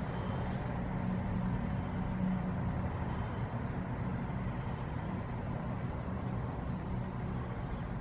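Steady low rumble and hum of background noise, with no fountain music audible.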